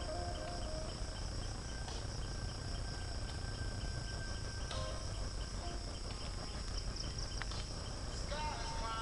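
Steady high-pitched insect chorus over a low rumble, with a few short whistled tones and a wavering call near the end.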